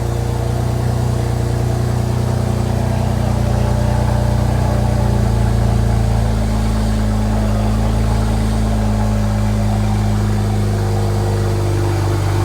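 BMW 335i's N54 twin-turbo inline-six idling steadily through freshly fitted catless downpipes.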